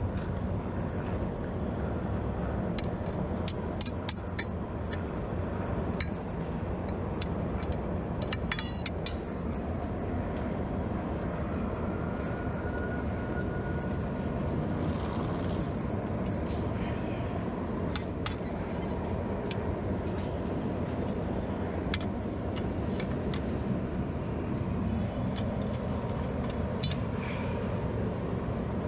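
Blacksmith's forge running with a steady rushing noise, with scattered light clicks and clinks of metal over it, most of them in the first ten seconds.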